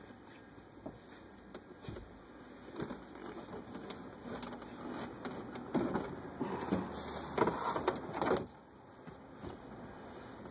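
Plastic center console of a 2003 Ford Explorer being lowered and fitted into place, scraping and knocking against the seats and floor brackets. A few light knocks come first, then the loudest rubbing and knocks from about five to eight and a half seconds in as it settles.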